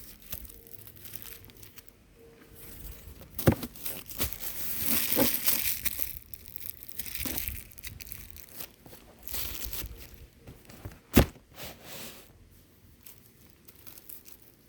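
Plastic prize wrapper crinkling and tearing as it is handled and pulled open, in irregular rustles with a louder stretch a few seconds in. Two sharp clicks stand out, one a few seconds in and one near the end.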